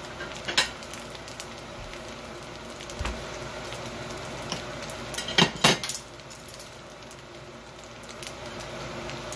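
Fried rice sizzling gently in a wok just after the heat is turned off, with a few sharp clinks of plates, the loudest two close together about five and a half seconds in.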